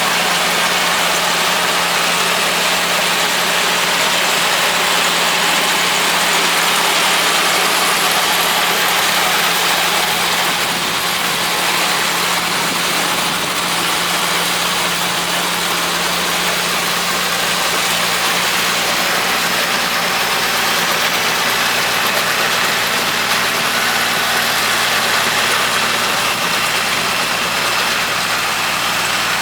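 Kubota L3200 tractor's diesel engine running steadily, driving a Farm Maxx mini round baler while baling hay, with an even, unbroken drone and a constant low hum.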